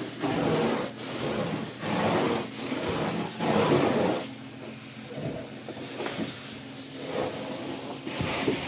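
Truck-mounted carpet extractor's cleaning wand being stroked over carpet: the vacuum rush swells and dips in strokes a little under a second apart, then settles into a steadier rush with a low hum for the second half.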